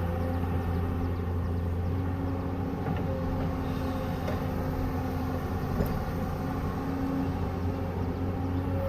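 Hydraulic excavator's diesel engine running steadily, with a faint whining tone that comes and goes.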